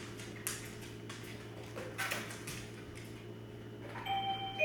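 A wireless doorbell chime begins about four seconds in with steady ringing tones; it is the cue for the dogs to go to their bed. Before it there are only a few soft clicks and knocks over a low steady hum.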